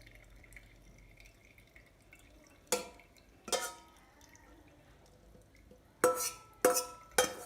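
Five sharp clinks of kitchenware against a glass jar, each ringing briefly: two a few seconds in, then three in quick succession near the end.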